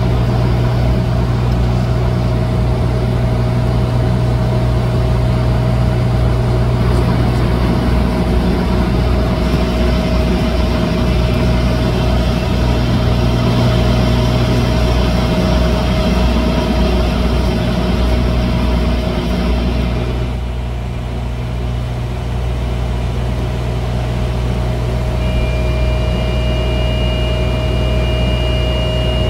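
Cockpit drone of a Dash 8-100's twin PW120-series turboprop engines and propellers in flight: a steady deep hum with a constant mid-pitched tone. The hiss eases for a couple of seconds about two-thirds of the way through, and a faint pair of high steady tones comes in near the end.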